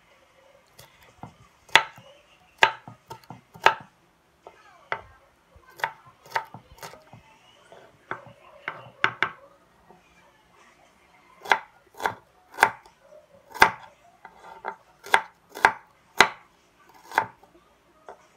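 Small knife cutting garlic and red onion on a wooden chopping board: sharp knocks of the blade against the board, coming irregularly, sometimes in quick runs of two or three.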